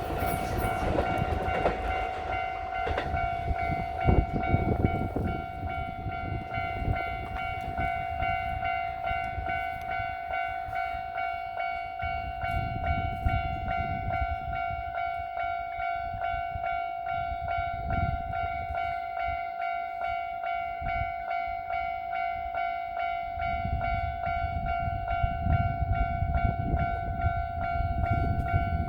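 A Japanese level-crossing warning bell rings continuously while a Kintetsu train passes over the crossing. The train's wheels rumble and clack on the rail joints, with a sharp knock about four seconds in. The rumble eases midway and builds again near the end.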